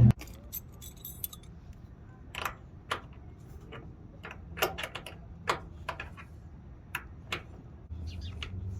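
About a dozen sharp metallic clicks and taps, spaced irregularly, from hand tools working the fasteners of a truck mud flap, over a faint low hum.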